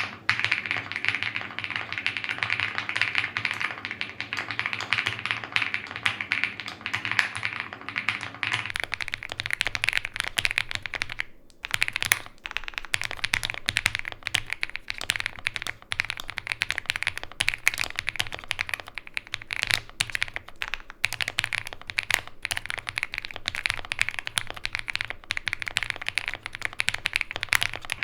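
Continuous fast typing on a Heracles 80 mechanical keyboard with factory-lubed KFA N20 switches and GMK keycaps: a dense run of keystroke clacks, with a brief pause a little over a third of the way in.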